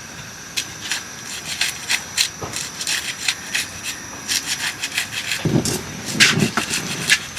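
Irregular dry scraping and rustling: a quick, uneven run of clicks and rubs, with a heavier scrape about five and a half seconds in.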